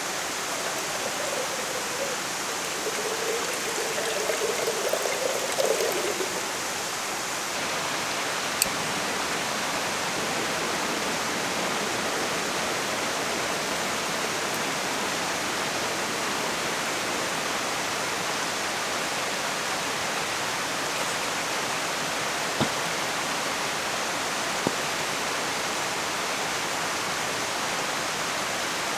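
Steady rush of falling water from a waterfall, with a faint wavering tone in the first few seconds and a few isolated sharp clicks.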